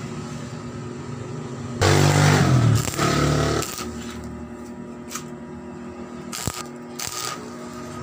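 Stick (arc) welding tack welds on a galvanized steel sheet box, with a steady electric hum from the welder throughout. The arc crackles and buzzes loudest in a burst about two to three and a half seconds in, and a few sharp clicks follow.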